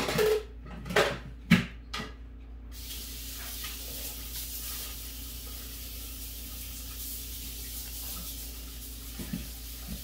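A few short knocks and clinks, then a kitchen tap is turned on about two and a half seconds in and runs with a steady hiss.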